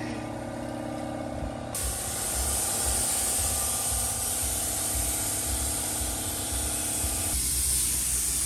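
Gravity-feed paint spray gun hissing steadily as compressed air atomises the paint, starting suddenly about two seconds in. A steady mechanical hum sits underneath.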